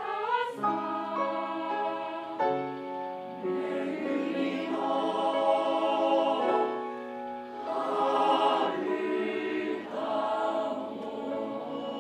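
A junior high school choir singing in chorus: held chords that move every second or so, swelling louder in the middle and again about two-thirds of the way through.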